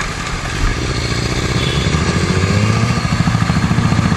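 Motorcycle engine running under way, with wind on the microphone. Its pitch rises as it accelerates about two seconds in, then it settles into a steady pulsing beat.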